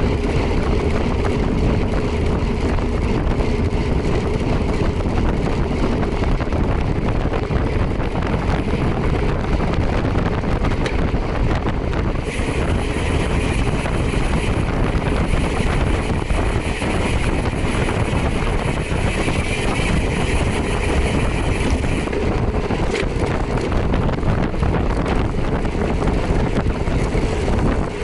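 Motorcycle under way: steady wind rush buffeting the camera microphone over the engine and road noise. The high hiss gets stronger for about ten seconds in the middle.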